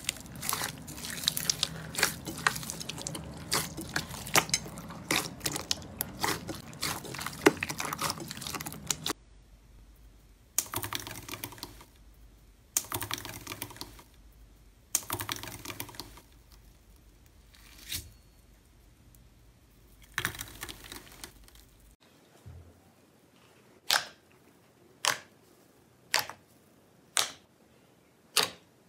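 Hand squishing clear slime mixed with small beads, a dense crackle of wet clicks and crunches. About nine seconds in, a wire press crushing a sheet of gold foil takes over, crinkling in bursts of about a second every couple of seconds. Near the end, a hand squeezes thick blue slime, giving sharp single pops about once a second.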